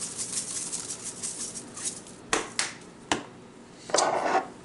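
Seasoning shaker rattling as spice is shaken out over ground meat for about two seconds, then three sharp clicks and a short rustling burst near the end.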